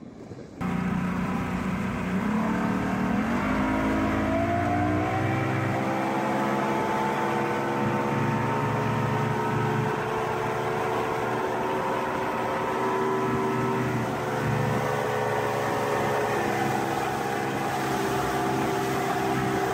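Evinrude 150 outboard motor running under way. Its pitch rises as the boat accelerates for about three seconds, starting about two seconds in, then holds steady at cruising speed, dipping slightly for a moment partway through.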